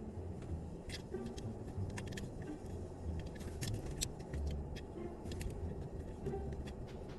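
Low rumble of a car interior with scattered small clicks and rustles of things being handled.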